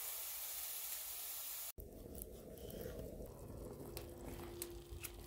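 Food frying in pans: a steady, bright sizzling hiss, then, after an abrupt cut, a quieter sizzle with scattered light clicks as black-eyed peas are tipped onto pieces of chicken frying in the pan.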